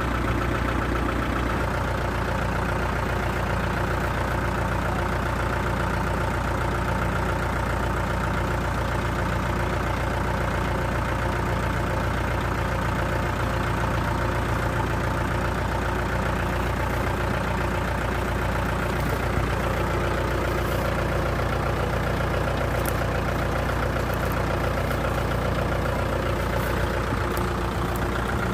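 Kubota MU4501 tractor's four-cylinder diesel engine running steadily, with a slow regular pulse in its low note.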